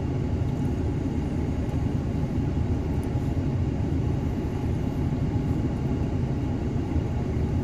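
Steady low rumble of vehicle noise, even and unbroken, with no distinct events.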